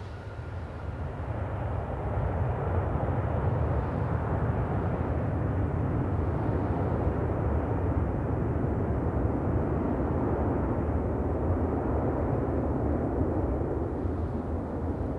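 Airbus A330-243 airliner's Rolls-Royce Trent 700 engines spooling into reverse thrust on the landing rollout: a deep rushing noise that swells over the first two seconds and then holds steady. A faint thin whine dies away about a second in.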